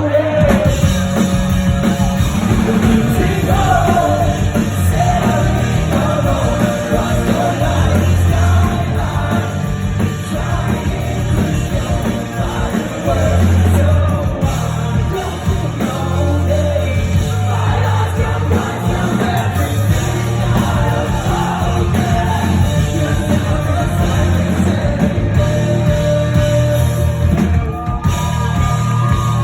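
Loud rock music with a singing voice and a heavy bass line, playing continuously.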